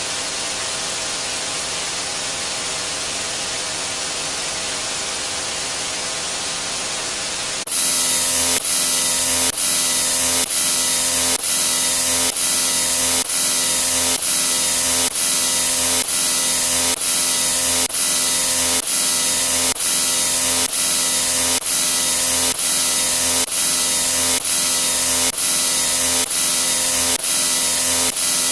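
Looped sound effects: a steady hiss, then about eight seconds in an abrupt switch to a louder, harsher noise with a steady hum that repeats in a loop about every two-thirds of a second.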